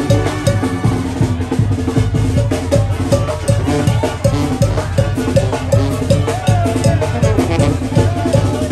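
Live band music: drums, including bass drum and snare, keep a steady beat under sustained brass notes.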